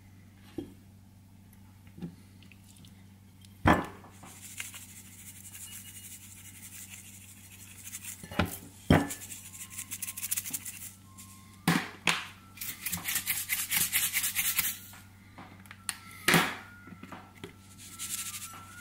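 Seasoning being shaken from a shaker bottle over raw chicken thighs in a ceramic bowl: quick, even rattling shakes for several seconds in the middle, with a few sharp knocks. A steady low hum runs underneath.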